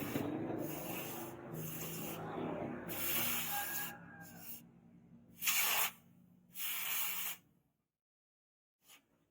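Sanding strokes on a steel blade: a long stretch of rasping rubbing, then two short strokes about a second apart, after which it cuts off suddenly to silence.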